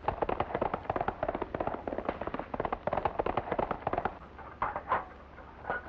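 A horse galloping on a dirt road: a rapid, dense clatter of hoofbeats that thins to a few separate knocks after about four seconds.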